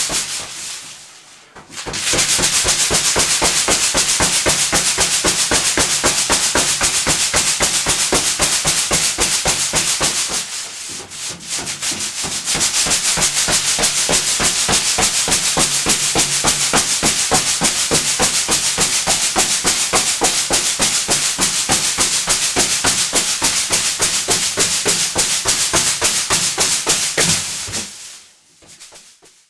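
Inflated latex punchball being punched over and over in fast succession, a quick even run of slaps that pauses twice, about a second in and about ten seconds in, and dies away near the end.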